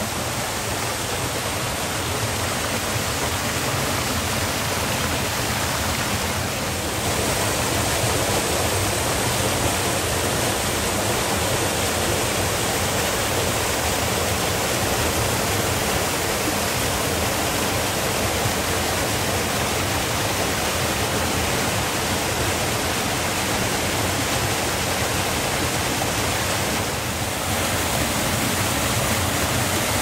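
Small waterfall pouring over mossy rocks into a pool: a steady, continuous rush of falling water.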